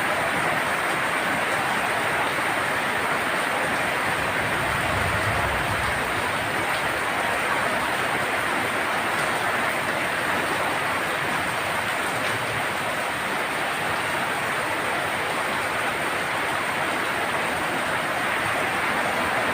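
Heavy monsoon rain drumming steadily on a tin roof, a dense unbroken patter.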